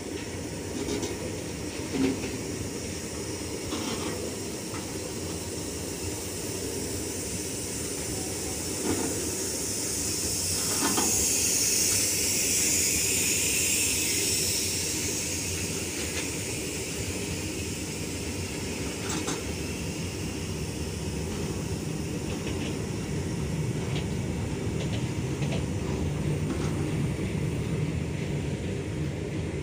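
Loaded open freight wagons of a long goods train rolling past: a steady rumble of steel wheels on rail with occasional knocks, and a louder high hiss for a few seconds around the middle.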